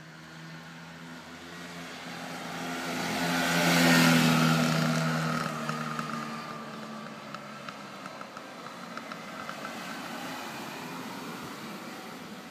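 1980 Bajaj two-stroke scooter riding past and away. Its engine note swells to its loudest about four seconds in as it passes close by, then fades as it climbs the hill.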